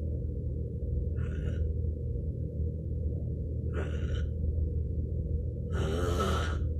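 A man snoring heavily in his sleep: three hissing breaths about two to two and a half seconds apart, sounding like a scuba diver breathing through a regulator. A steady low hum runs underneath.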